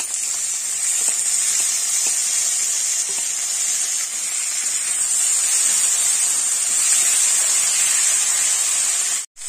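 Chopped tomatoes sizzling in hot mustard oil and spice paste in a kadai, stirred with a spatula: a loud, steady frying hiss that cuts out for an instant near the end.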